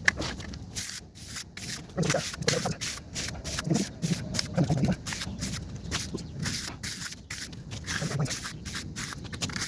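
Hand finishing tool scraping across the surface of freshly poured wet concrete in quick, repeated rasping strokes.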